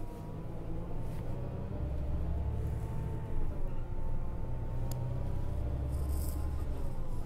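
Inside a moving bus: a steady low rumble of engine and road, with a thin whine over it and a few light rattles from the cabin.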